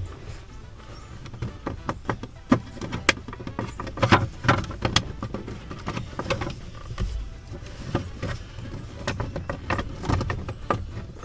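Plastic steering column shroud being handled and pried at. Irregular clicks, knocks and rattles come in clusters, with a low hum underneath.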